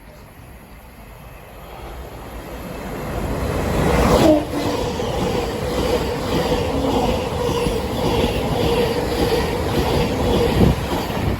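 A ten-car Class 700 electric multiple unit passing through the station. It grows louder as it approaches, and its pitch drops as the front goes by about four seconds in. Then a steady whine and an even, rhythmic wheel clatter carry on as the carriages pass, until the sound cuts away near the end.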